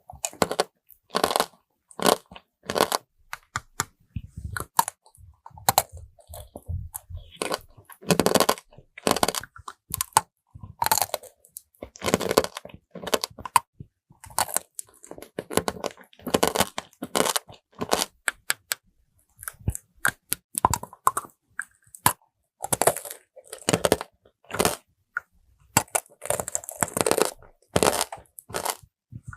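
Close-miked biting and chewing of gummy tanghulu: the hard sugar-glass coating cracks and crunches in quick, irregular bursts, with chewing between bites.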